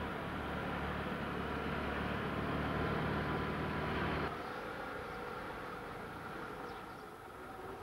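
A car engine running steadily at low road speed. Its sound cuts off abruptly a little over four seconds in, leaving quieter open-air noise with a faint steady tone.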